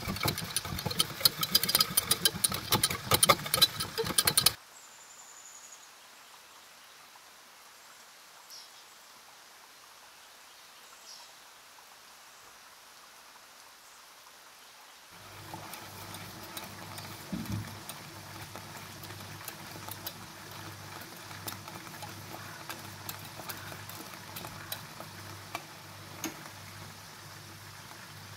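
Wire whisk beating sauce in a steel pan, a rapid clatter and scrape of metal wires on metal that stops suddenly after about four and a half seconds. After a quiet stretch, a steady low hum with scattered soft ticks comes in about halfway through.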